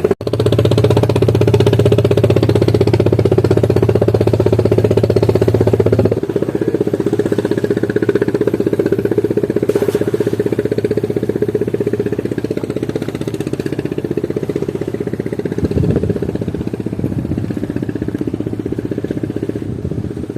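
An engine running steadily. About six seconds in, its deepest note drops away and it carries on a little quieter.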